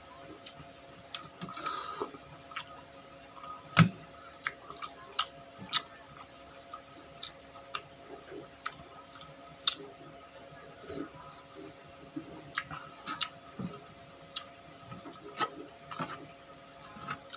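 A person eating close to the microphone: irregular wet mouth clicks and smacks while chewing, with one sharper click about four seconds in.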